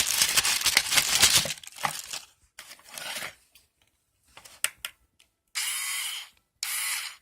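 Plastic packaging crinkling for the first second and a half, then a few handling clicks, then a Craftsman 4-volt cordless screwdriver's small electric motor run in two short bursts near the end.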